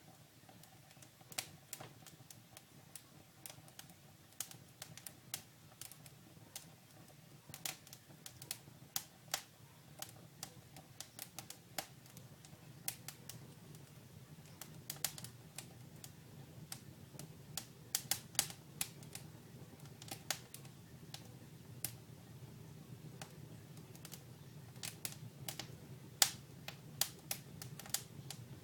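Dry wood burning in a fireplace, crackling and popping at irregular intervals over a faint low rumble of flames, with one sharper pop near the end.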